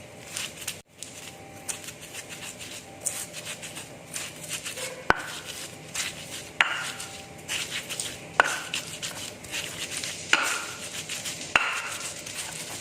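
Pestle grinding spice paste in an Indonesian cobek mortar, a continuous gritty scraping. Sharp knocks of the pestle against the mortar come about every one and a half to two seconds in the second half.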